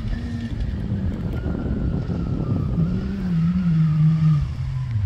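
Competition hatchback's engine running hard as the car races across a dusty stubble field, its pitch dropping and climbing again several times.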